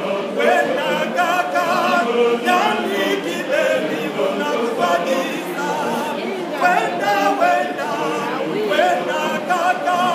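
Men's church choir singing a cappella, several voices together with a wavering, ornamented melody and no instruments.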